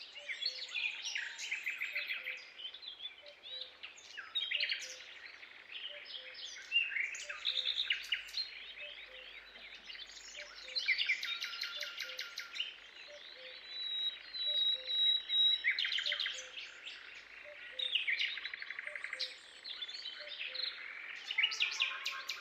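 Songbirds singing together, overlapping rapid trills and chirps, with a short high steady whistle about two-thirds of the way through.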